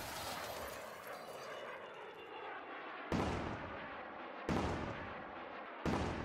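Heavy booming hits from an outro sound effect: one at the start, then three more about a second and a half apart from about three seconds in. Each strikes suddenly and dies away slowly.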